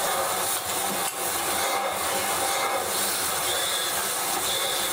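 Steady rushing hiss in a film's soundtrack.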